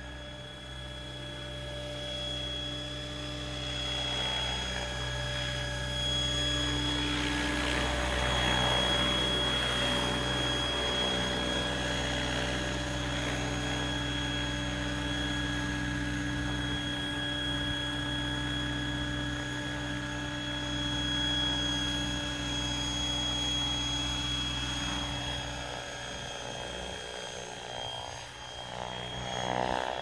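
Electric Mikado Logo 600 RC helicopter in flight: a steady high whine from its motor and gears over the rushing of its rotor blades, growing somewhat quieter near the end.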